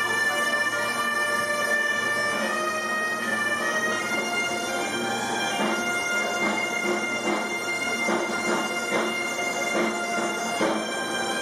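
A band of Asturian gaitas (bagpipes) playing a tune together over their steady drone, with a side drum beating along from about the middle.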